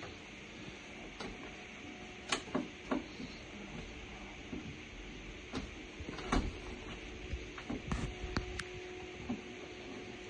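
Newly commissioned hot-water and heating system running with a steady low hum and hiss, with scattered light clicks and knocks through the middle.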